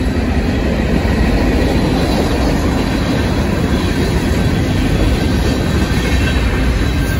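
Freight cars of a passing train (autoracks, boxcars and covered hoppers) rolling by on steel wheels. It is a loud, steady rumble of wheels on the rails.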